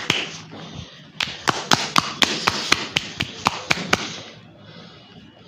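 A quick run of sharp taps, about four a second, lasting roughly three seconds and stopping a little before the end.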